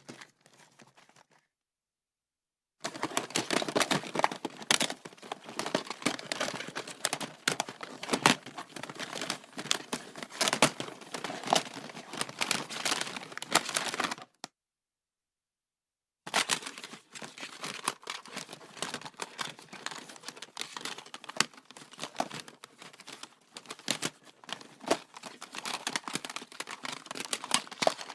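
Rummaging through an office stationery drawer: small metal and plastic items clatter, rattle and rustle in a fast, dense jumble. There are two long bouts with a pause of about two seconds between them.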